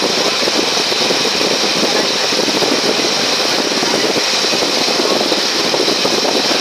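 A passenger ferry under way at sea: its engine running steadily, mixed with a loud, even rush of water and air.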